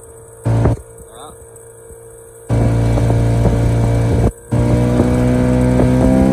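A 25 hp two-stroke outboard motor running steadily with a low hum, faint at first and loud from about two and a half seconds in. The recording cuts in and out briefly, choppy phone audio.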